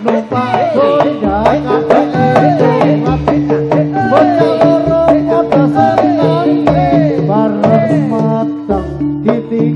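Javanese gamelan music accompanying a jathilan dance: steady metallophone notes and hand-drum strokes under a gliding, ornamented sung melody, with deep drum beats every second or two.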